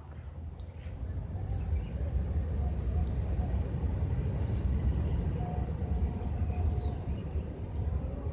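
Jet airliner's engines rumbling deep and steady, building over the first two seconds.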